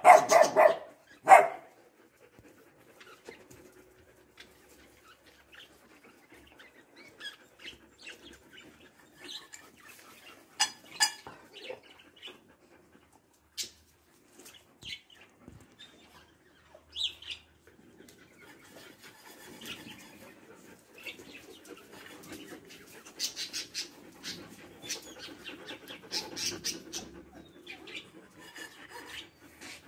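A dog barks loudly twice in the first second and a half, then the dogs go quiet: only scattered soft clicks and scuffles, a few short high chirps, and a low, restless rumble of movement in the second half.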